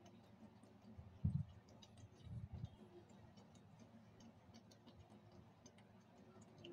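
Faint, irregular wet clicks of a cat licking a creamy treat from a squeeze tube, with two short low thumps about a second in and again around two and a half seconds in.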